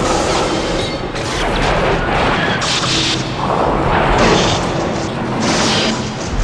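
Monster-film sound effects from the Heisei Gamera films: a dense run of booms, blasts and crashes over a continuous low rumble, with a burst of hiss every second or so.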